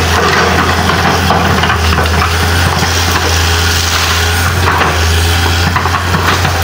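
A 1995 Komatsu PC200 excavator's diesel engine running steadily with a low drone, while it breaks and crushes branches and brush with irregular cracking and splintering.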